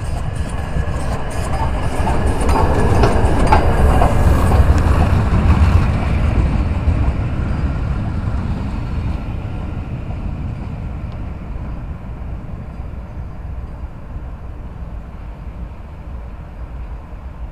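Peppercorn A1 Pacific steam locomotive 60163 Tornado and its coach passing close by on the rails. The sound swells to a peak a few seconds in as the engine goes by, then fades steadily as the train draws away.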